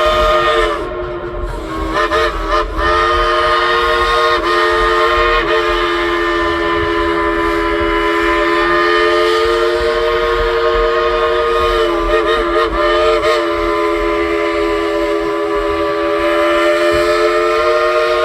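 Coal-fired steam locomotive's chime whistle blown in one long, loud blast of several notes sounding together. The pitch wavers briefly about two seconds in and again about twelve seconds in as the whistle valve is worked.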